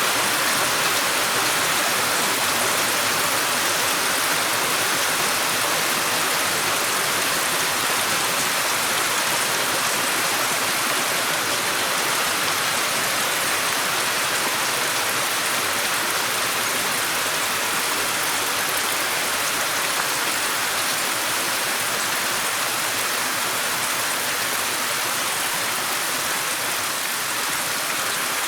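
Steady rainfall: a dense, even hiss of rain with no distinct drops or gusts standing out.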